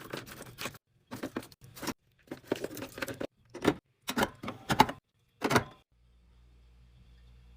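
Irregular clinks and clatters of containers and packages being handled and set down, as when restocking a fridge; they stop about six seconds in, leaving a faint low hum.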